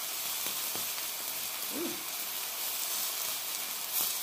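Ribeye steak frying in oil on a flat electric griddle: a steady sizzle with a few pops of spattering oil, the sharpest near the end.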